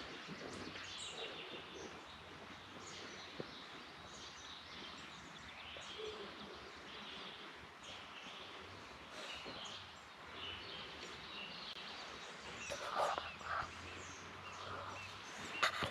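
Small birds chirping and trilling on and off over a faint steady background hiss, with a few louder short sounds near the end.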